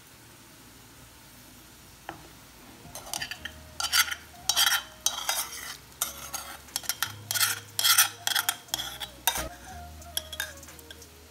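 A steel spoon scraping and clinking against a stainless steel pressure cooker pot while scooping out soaked rice palada. The strokes begin about three seconds in and come in quick irregular runs, with a faint metallic ring.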